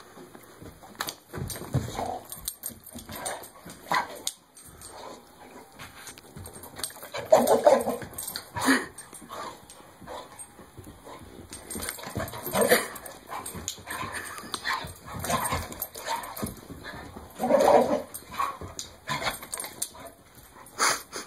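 A pit bull–Labrador mix dog playing with a red rubber Kong toy: frequent knocks and scuffles of the toy and paws on the floor, with the dog's short vocal sounds, three louder ones about five seconds apart.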